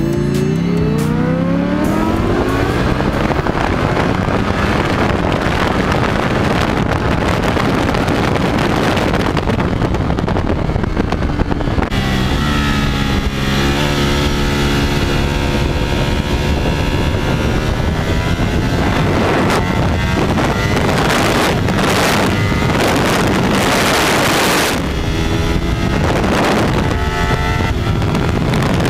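Ducati Panigale V4 S's V4 engine at racing speed, heard from an onboard camera: the engine note climbs as it accelerates, drops and rises again through braking and gear changes, with heavy wind noise buffeting the microphone at speed.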